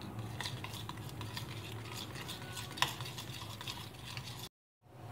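A metal spoon stirring melted soap mixture in a steel bowl, with many small clinks and scrapes against the sides and one sharper clink a little under three seconds in. The sound cuts off suddenly near the end.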